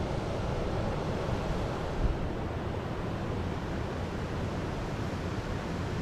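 Steady rush of falling river water at the Keila waterfall and weir. Wind buffets the microphone, with a low bump about two seconds in.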